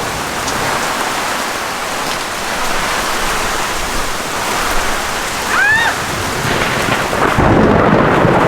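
Heavy thunderstorm rain hissing steadily, with a low rumble of thunder swelling about seven seconds in and becoming the loudest sound. A short high chirp, rising then falling, cuts through a little past halfway.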